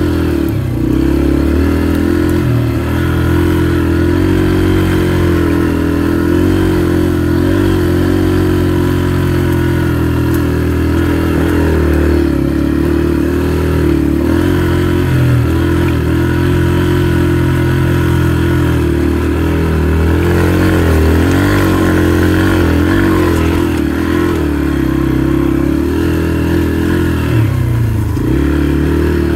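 Dirt bike engine running at fairly low, steady revs, with brief rises and dips in pitch as the throttle is worked.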